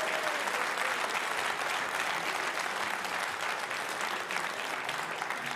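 Audience applauding steadily, clapping for a successfully completed shot.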